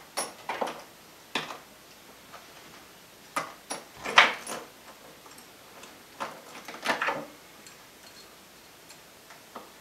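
Small hardware being handled inside a wooden box: irregular clicks and knocks of metal pieces and wood, the loudest about four seconds in.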